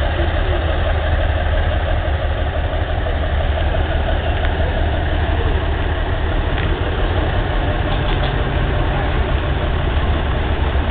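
Small diesel locomotive's engine running steadily at idle, a loud, even low rumble.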